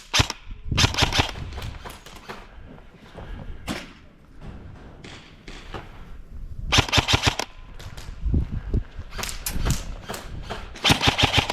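Airsoft guns firing in several short rapid bursts of sharp cracks, about a second in, around the middle, and twice near the end, with quieter single shots and knocks between.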